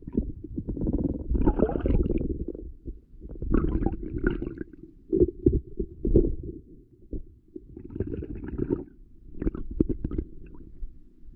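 Muffled gurgling and rumbling of shallow stream water heard through an underwater camera's housing, coming in irregular surges with a few sharper knocks.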